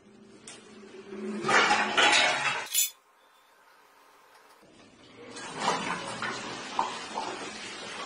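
Plastic water bottles knocking and clattering against each other and a wooden frame as they swing and tumble in a chain reaction. A burst of clatter comes about a second and a half in, a short near-silent gap follows around the middle, and the clattering picks up again from about five seconds on.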